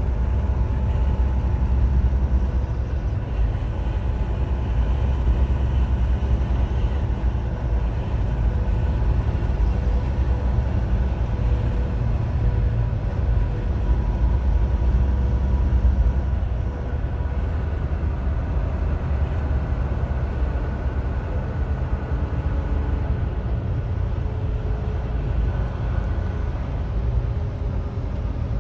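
Semi-truck cab at highway speed: a steady low engine drone and road noise, with a faint steady whine above it.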